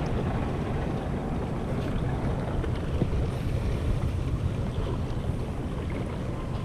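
Wind rumbling on the microphone, with small waves lapping against a paddle board.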